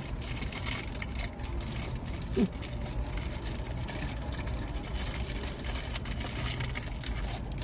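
Steady low background rumble with scattered light clicks and rustles of plastic food packaging being handled.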